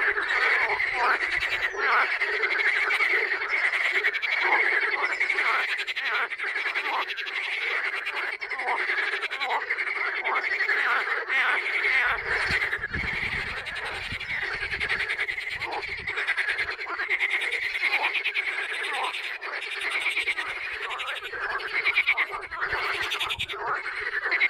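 A dense chorus of many frogs calling at once, their overlapping croaks and trills running on without a break.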